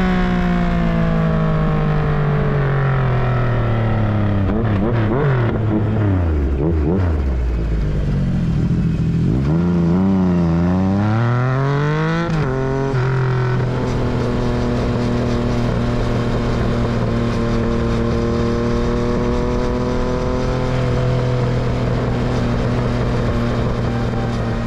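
Yamaha MT-09's triple-cylinder engine and exhaust on the move: the revs fall away over the first several seconds, climb again around ten seconds in, then hold steady at a constant pitch.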